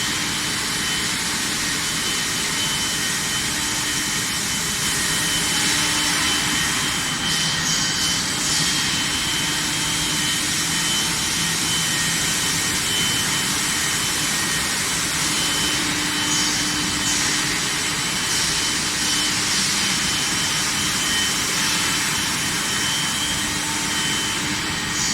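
Steady, loud industrial machinery noise, a continuous rushing drone with faint high whining tones over it.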